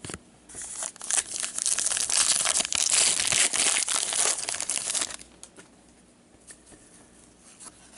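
Trading-card pack wrapper crinkling and crackling as gloved hands work it, busiest from about one to five seconds in, then only a few faint handling ticks.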